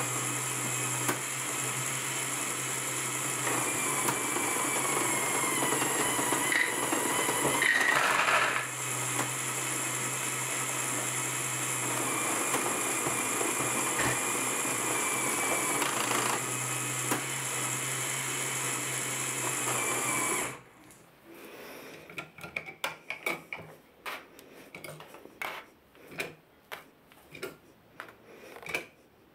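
LEGO Technic machine running off a single XL motor: a steady motor whir mixed with the clatter of plastic gears, worm gears and clutches, with a brief louder clatter about eight seconds in. The drive stops suddenly about two-thirds of the way through, and only scattered light plastic clicks follow.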